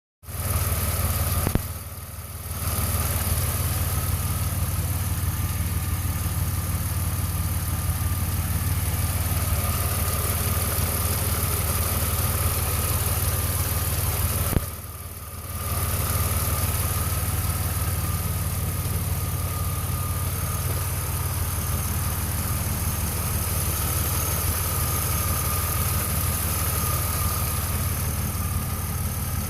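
2002 Pontiac Firebird's 3.8-litre V6 idling steadily, with a thin steady whine above the engine note. The owner hears a whine and a tapping, which he is unsure of, and his oil pressure gauge jumps between 55 and 35 psi. The sound drops away briefly twice, about two seconds in and near the middle.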